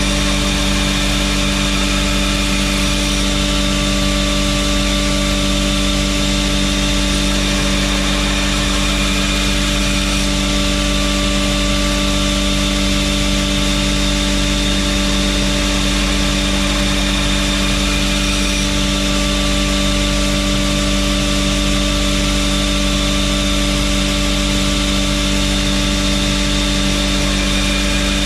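Belt grinder running steadily with a constant motor hum, while a knife blade's bevels are ground on it.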